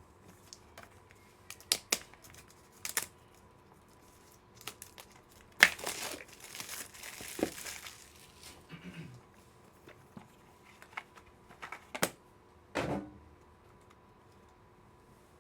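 Wrapping on a pack of trading cards being torn open and crinkled, with a longer stretch of rustling about six seconds in. Scattered sharp clicks and taps of cards and plastic card holders being handled come before and after it.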